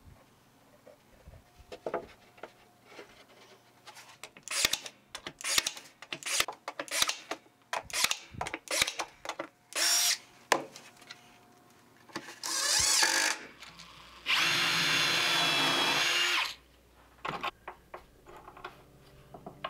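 Ryobi 18V cordless drill driving screws into plywood in short runs, the longest lasting about two seconds, between scattered clicks and knocks of screws and boards being handled.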